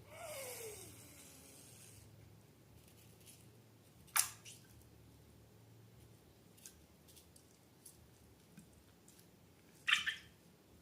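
Slime being worked by hand. Small wet squishes and ticks run throughout, with a sharp squelch about four seconds in and a louder crackly squelch near the end. A short squeak falls in pitch at the start.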